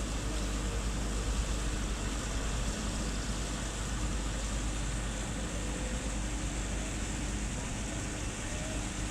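A ship's engine running with a steady low drone and a constant rush of noise while the ship berths.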